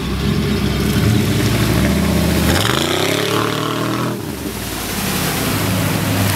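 Lifted 4x4 mud truck's engine running, then revving up in a steadily rising pitch for about a second and a half before it cuts off sharply; after that the engine runs on with a rougher, noisier sound.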